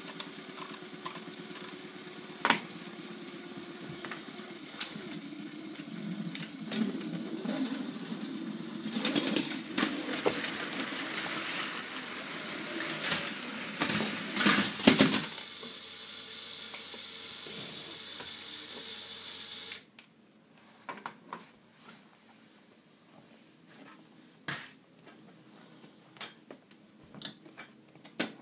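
A motorized LEGO train runs with a steady hum, its wheels rattling on plastic track, with plastic clattering and knocks between about six and fifteen seconds in. The hum cuts off abruptly about two-thirds of the way through, leaving only scattered light plastic clicks.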